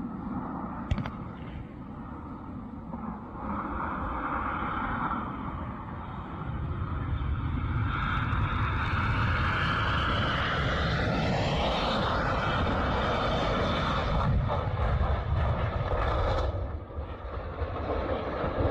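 Jet airliner's engines running as it passes close by, a rushing noise that swells about seven seconds in, with a sweeping shift in pitch near the middle.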